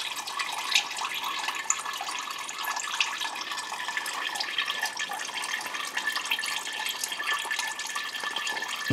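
A thin stream of fluid draining from under a Saab 9-5's engine and trickling into a plastic bucket, a steady splashing with small drips through it.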